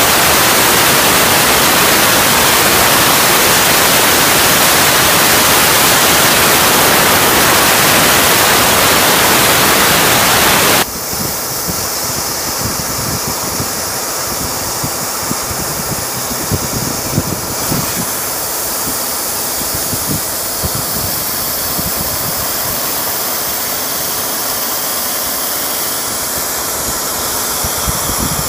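A 150 W laser cutting machine running on MDF: a loud, steady hiss that drops abruptly to a quieter hiss about eleven seconds in. Faint crackling and clicking runs through the quieter part.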